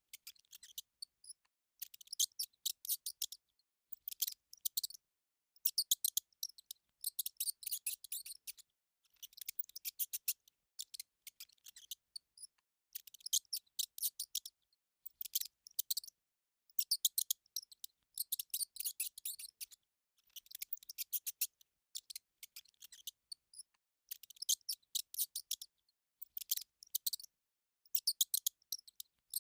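Mouse squeaking: short bursts of rapid, high-pitched squeaks, each about a second long, repeating every second or two with brief silences between.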